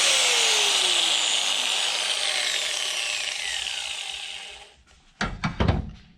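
Power tool motor winding down after being switched off, its whine falling steadily in pitch and fading over about four seconds. A few short knocks and rubbing sounds follow near the end.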